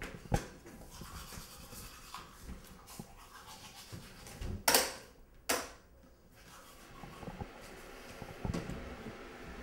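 Teeth being brushed with a toothbrush: an irregular scratchy scrubbing, with two short, loud rushes of noise a little after halfway.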